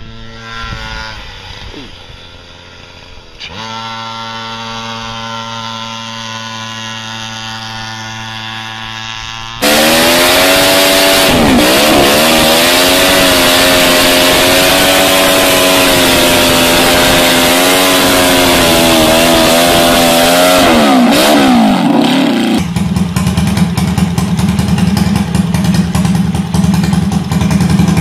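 Several engines in turn. First a small engine runs at a steady pitch. Then, loud and about ten seconds in, a mini motorcycle's inline four-cylinder engine is held at high revs with a couple of brief dips while its rear tyre spins in a burnout. Near the end a mini chopper's single-cylinder engine idles steadily.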